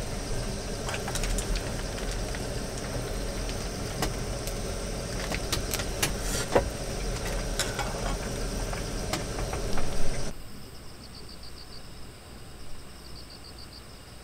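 Small gas camping stove burning under an aluminium mess tin of boiling water: a steady rush with scattered pops and ticks, the loudest just before ten seconds in. Then it cuts off suddenly to quieter insect chirping in short, evenly repeated trills.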